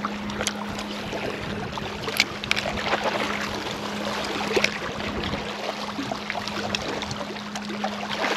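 Small waves lapping and splashing against shoreline rocks, with scattered sharp clicks from a spinning reel being handled, the loudest about two and four and a half seconds in. A steady low hum runs underneath.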